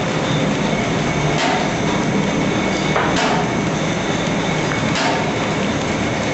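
Automatic paper bag making machine running: a steady mechanical clatter with a sharper knock that repeats about every two seconds.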